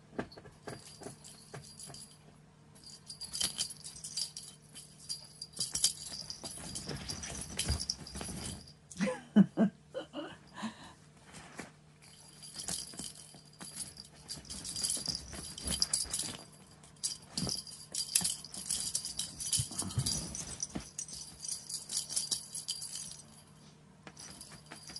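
Small jingle bells jingling and rattling in two long, busy stretches with a quieter gap between, as cats bat at and chase a toy.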